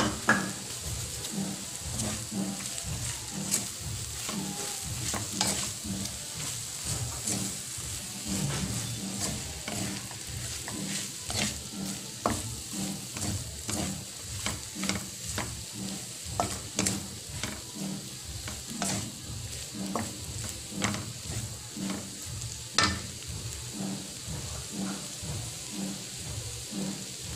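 Wooden spatula repeatedly scraping and turning flaked milkfish sisig in a hot metal wok, with a steady sizzle of frying underneath.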